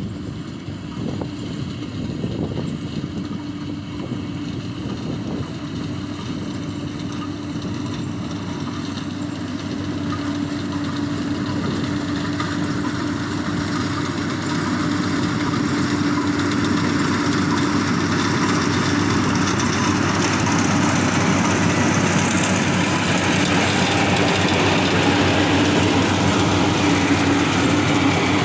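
Yanmar AW82V rice combine harvester's diesel engine running with a steady hum, growing gradually louder through the second half.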